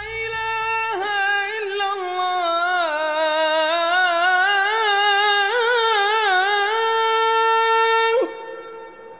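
Background music: a solo wind-instrument melody with ornamented bends and trills, ending on a long held note that stops about eight seconds in and rings away.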